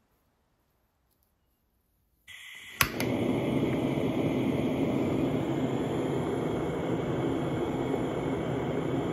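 Project-03 gas-cartridge blowtorch. Near silence at first, then the gas starts hissing a couple of seconds in, a sharp click half a second later as the torch lights, and after that the flame burns with a steady rushing noise.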